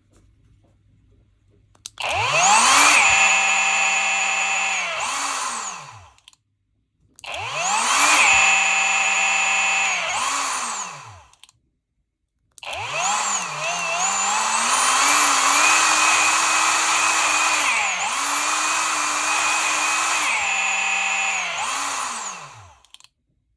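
Brushless electric chainsaw motor, trigger pulled three times: each time it whines up to high speed, soon drops to a lower speed and runs rough, then on release surges back up briefly before spinning down to a stop. The owner takes this speed drop under the trigger for a motor or controller fault. The third run is longer, holding high speed for several seconds with a short dip before the drop.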